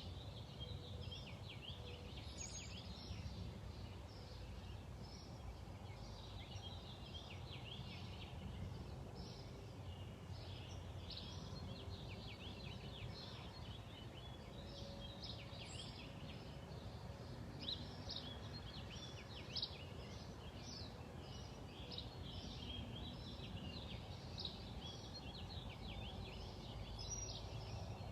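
Small birds chirping, a rapid, continuous run of short high chirps in clusters, over a steady low background rumble.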